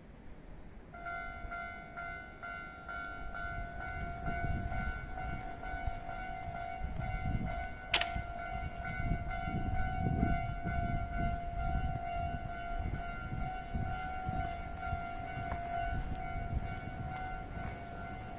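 Japanese level-crossing warning bell starts ringing about a second in, a steady repeating electronic clang, as a Hankyu electric train rumbles through the crossing with rhythmic wheel clatter on the rails and one sharp crack about eight seconds in.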